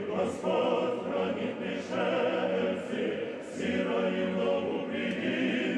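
Men's church choir singing an Orthodox liturgical chant a cappella, several voices in long held chords that change every second or two.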